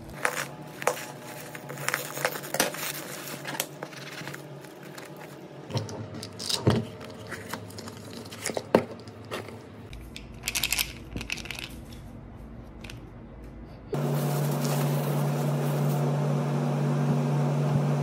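Bubble wrap and packaging crinkling and tearing as a parcel is cut open and unpacked, with many sharp clicks and rattles of plastic and cardboard. About fourteen seconds in this gives way to a louder steady hum.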